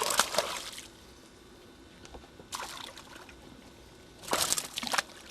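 Water splashing and sloshing in three short bursts, roughly a second and a half apart.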